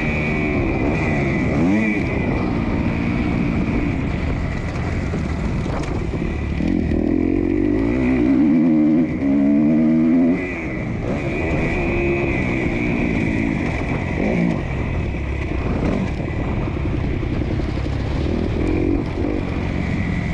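Motocross dirt bike engine ridden hard around a dirt track, revving up and down again and again as the rider works the throttle. It revs highest and loudest about seven to ten seconds in, then drops off suddenly.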